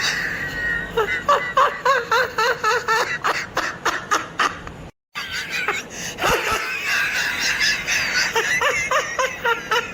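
A person laughing maniacally in a quick, rhythmic run of pitched 'ha' pulses, about three or four a second. The laugh cuts out for a moment about halfway, then starts again.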